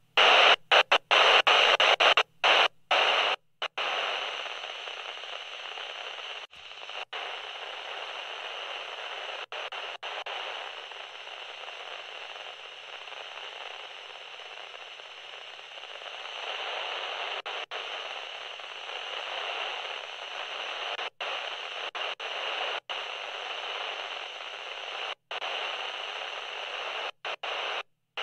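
Static hiss, loud for the first few seconds and then quieter, broken by brief sudden dropouts to silence, many of them near the start.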